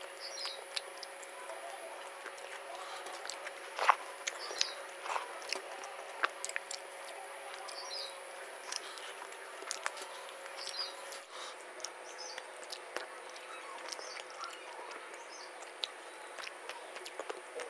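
Close-up eating sounds of rice and sour fish curry eaten by hand: soft squelching as fingers mix the food on a steel plate, chewing and small mouth smacks making many short clicks. Faint chirps come every couple of seconds in the background.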